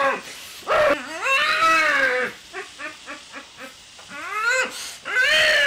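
A high-pitched human voice making wordless cries: two long wails, with a run of short quick vocal sounds between them.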